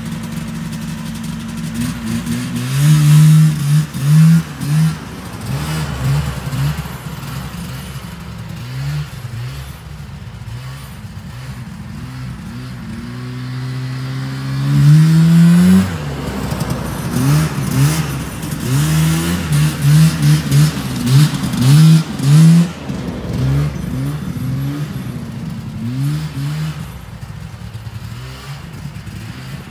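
Vintage John Deere snowmobile's two-stroke engine revving up and down in quick throttle blips, with one longer climb in pitch about halfway through, growing fainter near the end.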